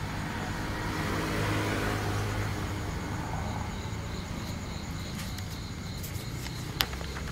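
Outdoor background noise: a vehicle passes, rising and fading over the first few seconds, over a steady low hum and faint, even insect chirping. A single sharp click comes near the end.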